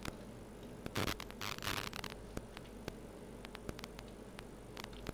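Quiet room tone with a steady low hum, scattered small sharp clicks and a brief rustle about a second and a half in.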